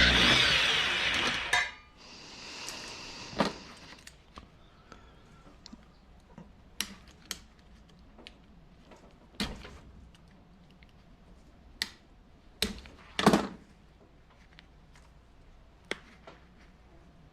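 A drill driving a Stripmaster wire stripper runs and winds down within the first second and a half, then stops. Scattered sharp clicks and knocks follow, the loudest a pair of knocks about 13 seconds in.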